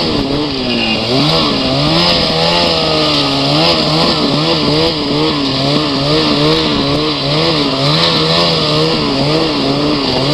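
Ski-Doo Summit X snowmobile's two-stroke engine running under constantly changing throttle, its pitch rising and falling over and over, with a steady hiss over it.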